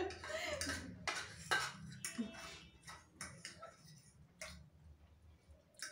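Forks clinking and scraping against plates while noodles are eaten, in scattered, irregular light clicks.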